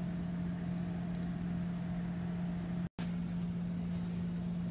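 A steady low hum over an even background hiss, which drops out completely for an instant about three seconds in.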